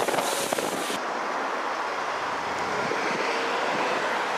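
A steam-hauled train passes with clicking wheels and hissing steam, then cuts off abruptly about a second in. After that comes a steady rushing noise like wind on the microphone by the line.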